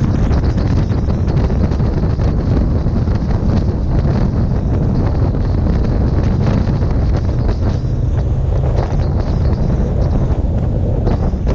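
Steady loud wind rushing over the microphone of a camera on a moving motorcycle, with a low rumble from the ride underneath.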